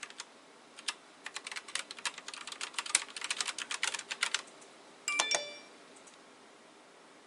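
Keys of a Fiodio mechanical gaming keyboard clicking: a few single presses, then a rapid flurry of keystrokes for about three seconds. About five seconds in, a brief electronic chime of several steady tones sounds.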